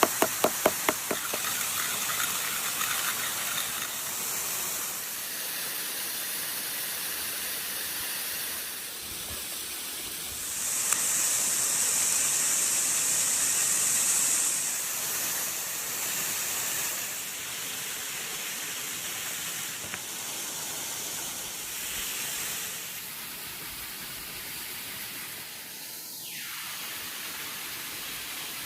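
Burger cooking on hot metal, sizzling in a steady high hiss that grows louder for a few seconds about a third of the way in. A quick run of ticks comes at the start, and a short falling whistle near the end.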